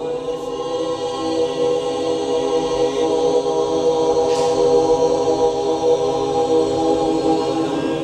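Background music: a choir holding a sustained chant on steady notes, swelling slowly.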